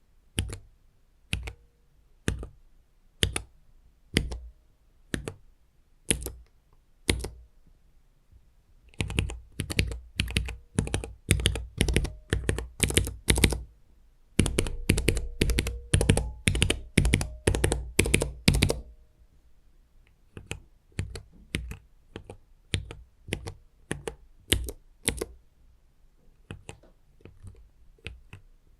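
Gateron mechanical keyboard switches on a switch tester being pressed by finger. First come separate clacks about once a second, then two long runs of rapid presses, then quieter presses near the end.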